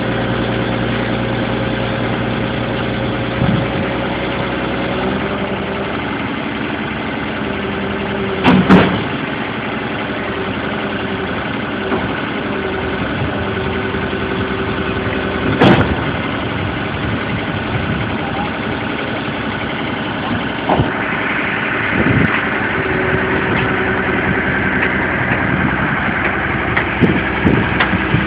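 Hitachi excavator's diesel engine running steadily, its note changing about five seconds in, with two loud metallic clanks, the first about a third of the way through and the second about halfway. Several smaller knocks follow near the end, while a higher steady whine joins the engine.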